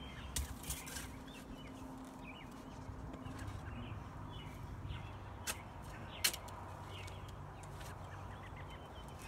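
Birds, chickens among them, calling faintly, broken by four sharp knocks, the loudest a little after the middle.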